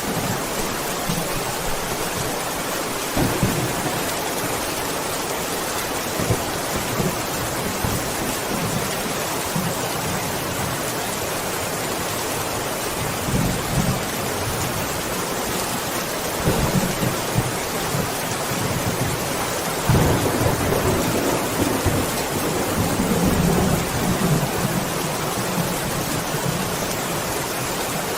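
Steady heavy rain hissing, with low rolls of thunder rumbling through it several times, the longest and loudest about two-thirds of the way in.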